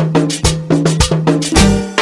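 Salsa band music: a percussion-led intro of timbales and congas, with sharp strikes about four a second. A longer, fuller stroke comes in near the end.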